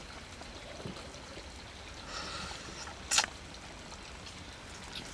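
Wet slurping and sucking as a saucy strip of stewed pork intestine is drawn from chopsticks into the mouth, with a short loud slurp about three seconds in.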